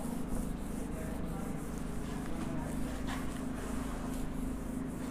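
A duster rubbing across a whiteboard in short wiping strokes, heard faintly over a steady low room hum.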